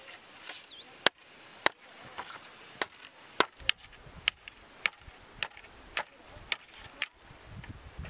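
Machete blade striking bamboo poles: about a dozen sharp chopping strokes, roughly two a second after a couple of slower ones. An insect chirps in short rapid pulsed trills behind it.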